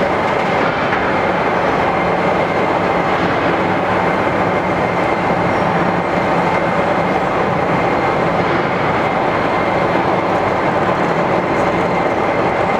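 Museum locomotive turntable turning with a steam locomotive aboard: a steady, even rumbling noise with a faint high tone running through it.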